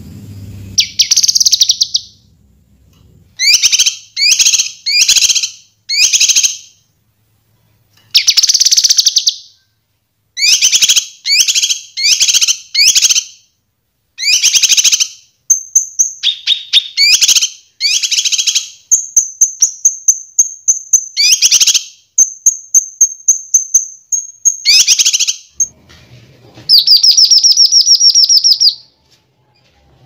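A kinoi leafbird singing: a varied run of short, loud, high chattering phrases with pauses between them. High thin whistles are slipped in midway, and a long rapid trill comes near the end.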